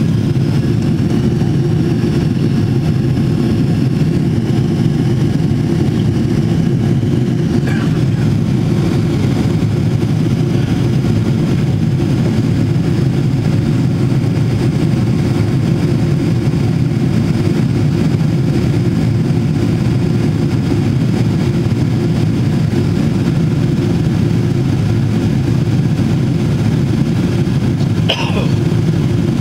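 Steady, loud cabin drone of a Boeing 777-300ER in flight, heard from a window seat: the GE90 engines and the airflow over the fuselage blend into an even, low rushing noise.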